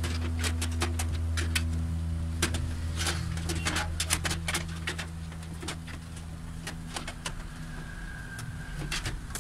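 An ATX power supply unit being fitted into a steel PC case: scattered knocks, clicks and scrapes of the metal box against the chassis. A steady low hum underneath fades about halfway through.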